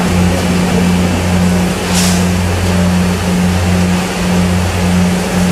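Banana chips frying in an industrial deep fryer: a loud, even sizzle of hot oil over a steady low machine drone that pulses about twice a second.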